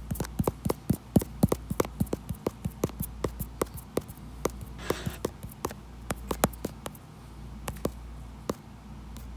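A rapid series of sharp clicks, several a second at first and thinning out to a few scattered ones in the second half, with a brief hiss about five seconds in.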